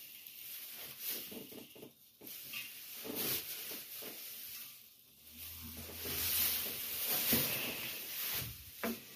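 Rustling of a blanket and straw with scattered soft handling knocks, growing louder from about six seconds in.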